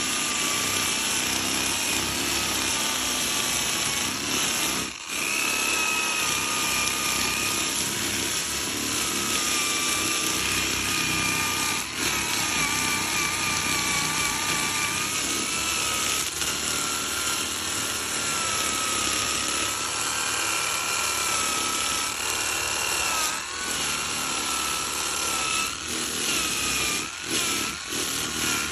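Power tool running continuously on wood, a high whine that wavers slightly in pitch over a hiss, easing off briefly a few times.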